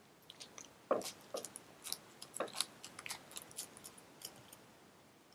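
Clear plastic packaging bag crinkling as it is pulled off a small electronic unit: irregular crackles and clicks, starting about a second in and thinning out near the end.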